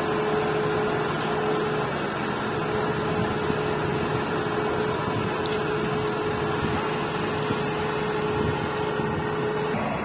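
Apollo AP 550 asphalt paver's diesel engine running steadily, with a steady whine over it that stops shortly before the end.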